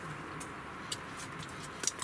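Faint sizzling in a small cast-iron skillet: a steady hiss with a few sharp crackles or ticks, the loudest near the end.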